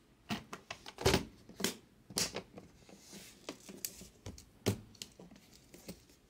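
Trading cards and clear plastic card holders being handled: a string of irregular sharp clicks and brief plastic rustles.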